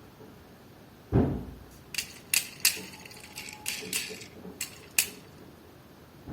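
Toy car packaging being handled and opened: a dull thump about a second in, then a run of sharp plastic clicks and crackles.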